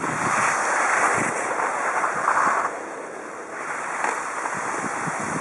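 Skis sliding and scraping over packed snow, a steady rushing hiss mixed with wind on the microphone, easing off a little about halfway through.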